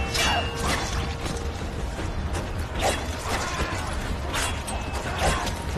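Battle-scene sound effects: a constant low rumble under about five sharp swishes and creaks.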